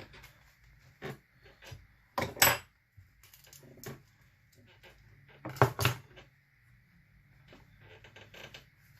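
Scattered clicks and knocks of small tools and parts being handled on a workbench, with two louder knocks about two and a half and six seconds in, over a faint low steady hum.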